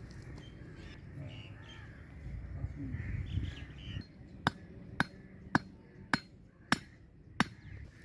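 A wooden stick being knocked into hard dirt with the blade of a large knife: six sharp knocks, about one every 0.6 s, in the second half. Crows cawing before the knocks.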